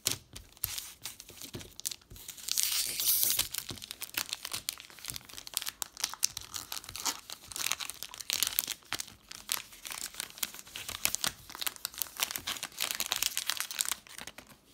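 Foil wrappers of Magic: The Gathering play booster packs crinkling and tearing as a pack is handled and ripped open, a dense crackle in irregular bursts, loudest about two to three seconds in.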